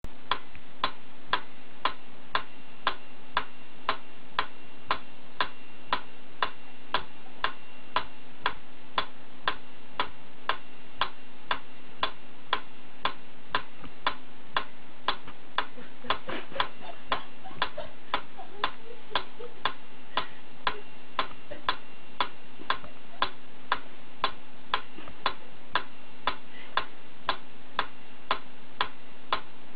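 Black pyramid-shaped mechanical metronome ticking steadily, about two ticks a second, its pendulum swinging back and forth, over a faint steady hum.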